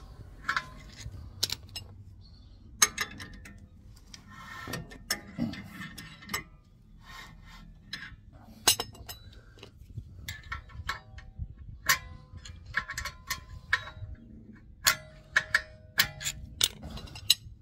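Irregular metallic clicks and ticks, some ringing briefly, as a screwdriver works the notched handbrake-shoe adjuster wheel inside a van's rear drum-in-disc brake and the disc is turned by a bar in the wheel studs, the shoes being wound out until they grip the drum.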